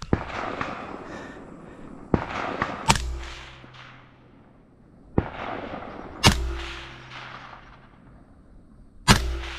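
Scoped rifle fired from a braced position at steel targets: three loud shots about three seconds apart, each followed by a long rolling echo.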